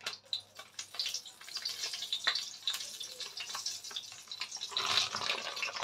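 Hot oil in a wok sizzling and crackling with many small pops as flour is poured in from a plastic bag, which rustles, a little louder about five seconds in. This is the start of a flour-and-oil roux for a white cream sauce.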